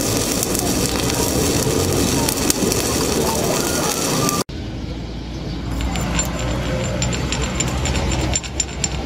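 MIG welding arc crackling steadily for about four and a half seconds, then cutting off suddenly. After it, a chipping hammer strikes the slag on the finished weld bead in a run of quick, sharp metal taps.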